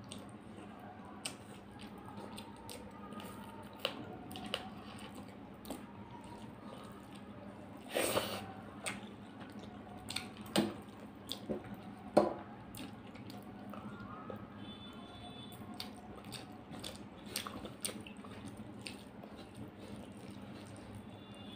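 Close-up sounds of eating by hand: wet chewing and mouth smacks, with fingers squishing rice and curry on a brass plate. Scattered sharp clicks throughout, with a short noisy burst past a third of the way in and the loudest click a little after halfway.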